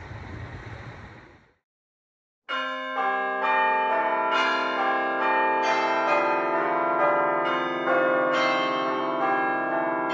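A steady background hiss fades out, and after a second of silence a tune of struck bell-like chimes begins, each note ringing on as the next is struck, several notes a second.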